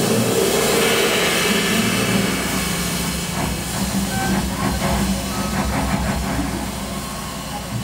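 Jazz ensemble playing a quiet, textural passage: a steady cymbal wash from the drum kit over sustained low double bass notes, with a few short high notes scattered through the middle. The music eases off slightly toward the end.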